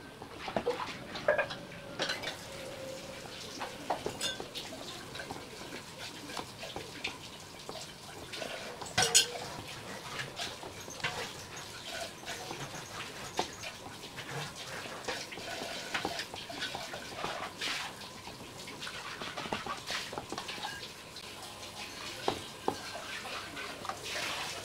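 Raw chicken leg pieces being mixed by hand with a wet spice marinade in a stainless steel bowl: squishing and rubbing, with irregular clicks and clinks against the steel bowl.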